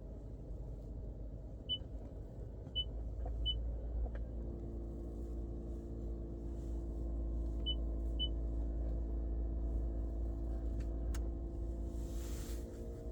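Toyota Prius Prime's HVAC system buzzing: a steady hum of several tones sets in about four seconds in over a low rumble, which the owner suspects is the heat pump going out. Five short high beeps sound through the first part.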